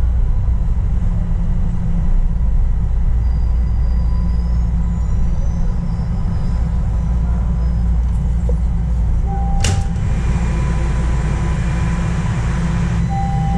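Toronto subway train running through the tunnel: a steady low rumble with a faint steady whine. About ten seconds in there is a sharp click, then a brighter hiss for about three seconds.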